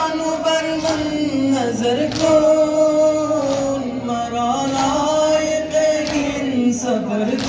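Men singing a noha, a Shia Muharram lament, in long drawn-out notes. Regular thumps of chest-beating (matam) come about once every second or so.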